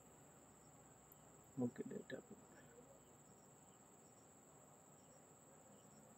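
Near silence with a faint, steady high-pitched tone throughout, and a brief faint sound about a second and a half in.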